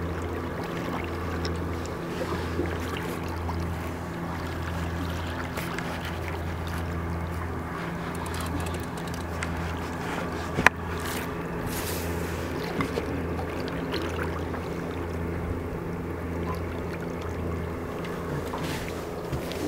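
A boat's motor running steadily with a low hum, its lowest note swelling and easing every second or so. A single sharp knock comes about ten seconds in.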